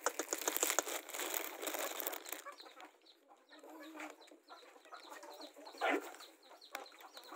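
Domestic chickens clucking while they feed, over scratching and rustling on dirt ground. The scratching is busiest in the first couple of seconds, and a short call comes about six seconds in.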